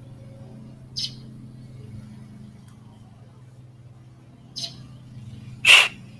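Three short hissing sprays, the last the loudest and longest, as the fuel filter is sprayed clean, over a steady low hum.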